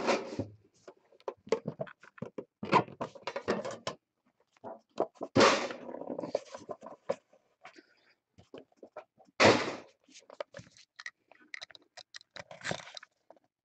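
Hands handling trading-card packaging, a lidded tin box and a cardboard box in a plastic sleeve, making scattered clicks, taps and rustles, with two louder scrapes about five and nine and a half seconds in.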